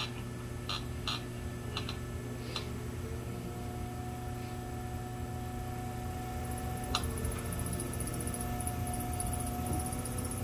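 Brent electric potter's wheel running with a steady motor hum and whine, a second whine tone settling in about three seconds in. A few light clicks in the first three seconds and one about seven seconds in.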